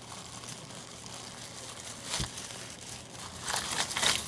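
Packaging crinkling and rustling as a parcel is opened by hand, with a sharp click about halfway and louder crinkling near the end.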